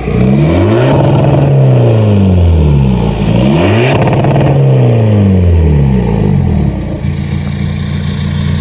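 VW Golf IV 1.9 TDI four-cylinder turbodiesel on a straight-pipe exhaust, revved up and let fall back twice, then settling to a steady idle about seven seconds in.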